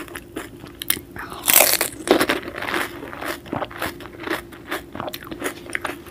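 Close-miked biting and crunching of a panipuri, the crisp fried puri shell filled with spiced pani, followed by chewing. The loudest crunches come about one and a half and two seconds in.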